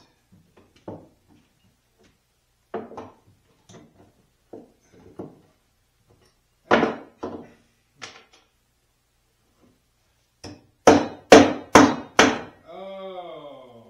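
Scattered knocks and thuds of wood and tools on solid oak boards, then four sharp strikes in quick succession near the end, followed by a brief wavering pitched sound.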